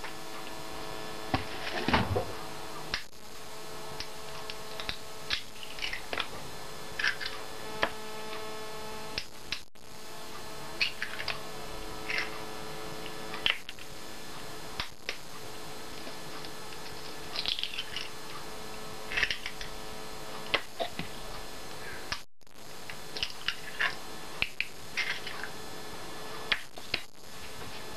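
Scattered light clicks and taps of a metal fork and eggshells against a plastic mixing bowl as eggs are cracked and readied for beating, over a steady low hum. The sound cuts out briefly twice.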